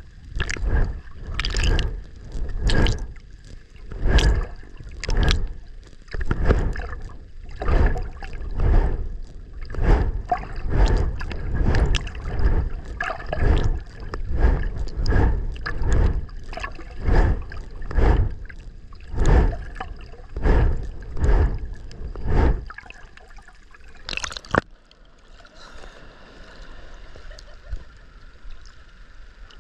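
Swimming strokes heard from underwater: a rhythmic whoosh of water rushing past, about once a second. Near the end the strokes stop. After a sharp knock, a softer, steady wash of choppy surface water takes over.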